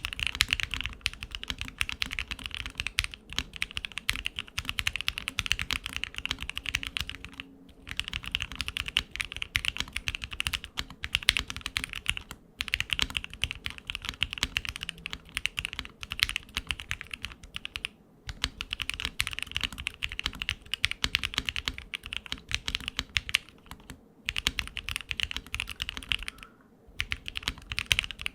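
Fast typing on a budget MW65 custom mechanical keyboard with a foam-modded, gasket-mounted case and PBT cherry-profile keycaps: dense key clacks in runs of several seconds, broken by brief pauses every five or six seconds.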